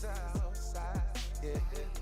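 Background music with a hip-hop beat: a deep bass note that slides down in pitch on each beat, the beats a little under a second apart, under a wavering melodic line.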